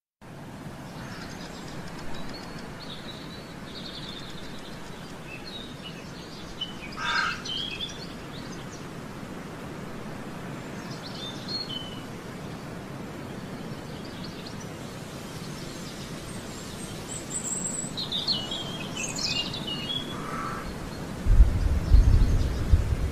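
Open-air park ambience: a steady background hiss with scattered chirps and calls from small birds. Near the end, gusts of wind buffet the microphone with a loud, uneven rumble.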